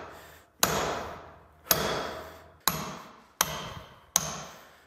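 Hand hammer striking a drift to drive the die out of a power hammer's ram. There are five sharp metallic blows, roughly one a second, and each one rings and dies away before the next.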